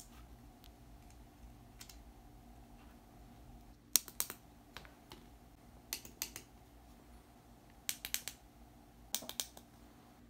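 Several short clusters of small, sharp plastic-and-metal clicks as tactile push-button switches are handled and pressed into place on a circuit board.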